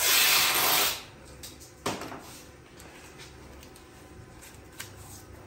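Masking tape pulled off the roll in a loud rip lasting about a second, followed by a single sharp click and a few faint handling clicks.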